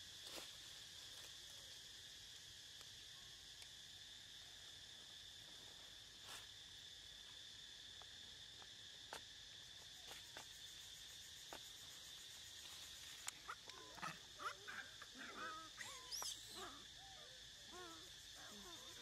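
Faint, steady high-pitched insect drone. About three-quarters of the way in comes a scatter of short, high squeaky animal calls that rise and fall in pitch.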